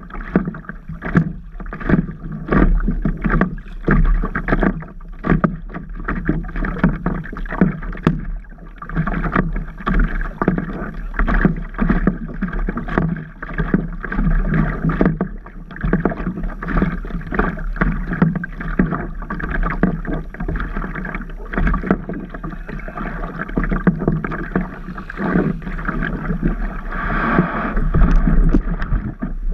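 Water slapping and splashing against a stand-up paddleboard, heard from a camera on the board, with frequent irregular sharp knocks about two a second and a louder splash near the end.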